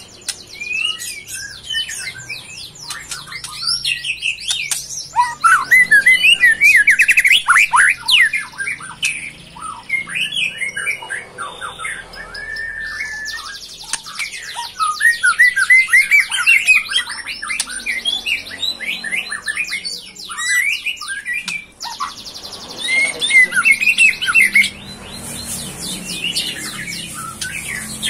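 A songbird singing a long, varied song of fast trills and slurred whistles, with loud peaks a few seconds apart.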